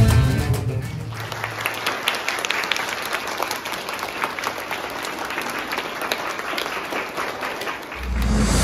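A large crowd of schoolchildren clapping. Music fades out in the first second, and other music comes in near the end.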